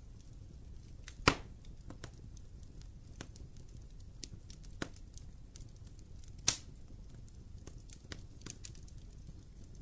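Wood fire crackling in a fireplace: scattered small pops with two louder snaps, about a second in and about six and a half seconds in, over a low steady rumble.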